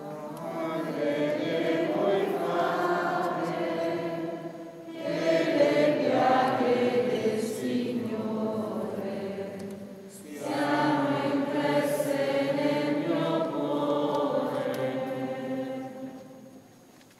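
Choir singing a hymn in three long phrases with short breaks between them, fading out near the end.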